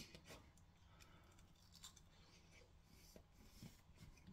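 Near silence, with a few faint crackles and ticks as fingers pick apart a crisp breadcrumb-coated mac and cheese bite.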